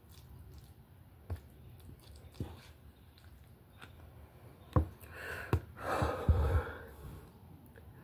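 Eating sounds: a metal fork clicking and scraping against a plate of stir-fry several times, with a breathy exhale a little past the middle.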